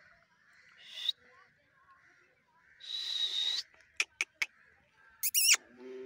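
Caged parakeets calling: scattered sharp clicks, a harsh squawk lasting under a second about three seconds in, and a loud warbling screech near the end. A lower, falling voice-like call follows the screech.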